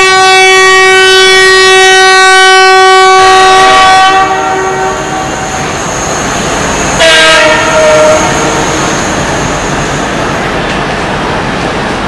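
Multi-tone horn of an approaching Indian Railways WDP-4 diesel locomotive: one long blast of about four seconds, then a short blast about three seconds later. The wheels of the passing trains rumble on the rails throughout.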